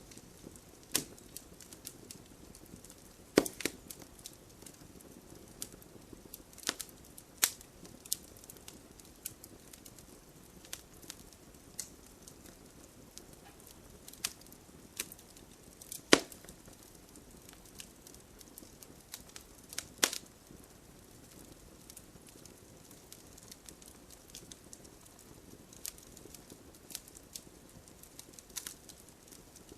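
Wood fire burning in a fireplace: irregular sharp crackles and pops over a soft steady hiss, with a few louder pops about three, seven, sixteen and twenty seconds in.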